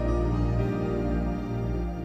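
Soft, slow new-age style background music with sustained tones over a low drone.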